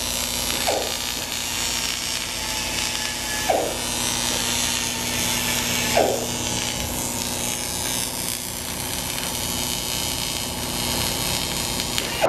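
TIG welding arc on a steering wheel's spokes: a steady buzzing hiss that runs without a break. Three brief falling chirps come about every three seconds in the first half.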